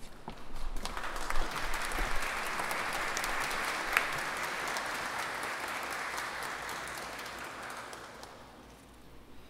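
Audience applauding, building up about a second in and fading out near the end: a welcome for the soloists as they walk on before the piece.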